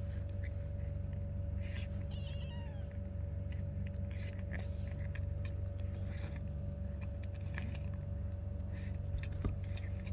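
Mother cat licking and chewing at her newborn kitten during birth: scattered soft, wet clicks, with a brief high, wavering squeak about two seconds in, over a steady low hum.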